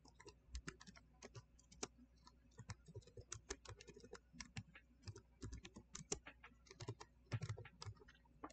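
Faint typing on a computer keyboard: a run of many quick keystrokes at an uneven pace.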